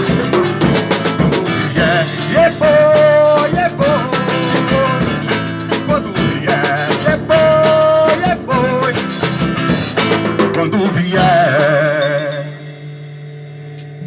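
Acoustic guitar and drum kit playing a song, with a melody line over them. About twelve seconds in the band stops, and a low chord rings on as the drums fade.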